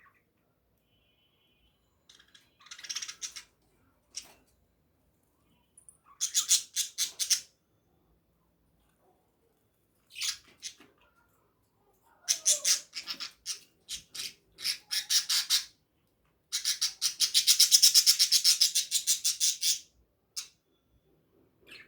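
Birds giving rapid, pulsed chattering squawks in several bursts of one to three seconds, with silent gaps between; the longest and loudest burst comes near the end.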